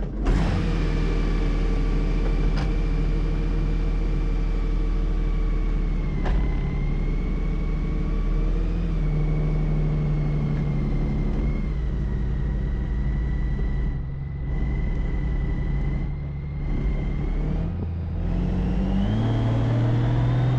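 Honda Gold Wing's flat-six engine running on the road, with wind noise over the camera microphone. The engine pitch shifts a few times, around the middle and again near the end.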